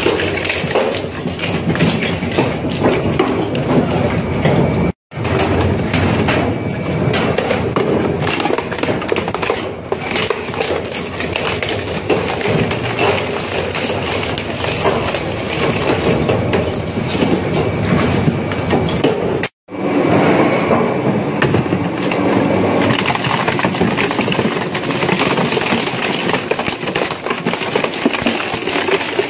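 Twin-shaft industrial shredder grinding and crunching through metal objects, its rotating hooked blades tearing with a constant clatter of cracks and snaps. The sound cuts out twice, briefly.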